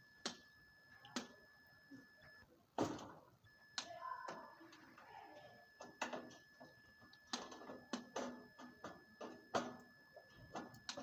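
Hand tools clicking and knocking irregularly while an air conditioner's old compressor is being removed, with a faint steady high whine that drops out briefly about two and a half seconds in.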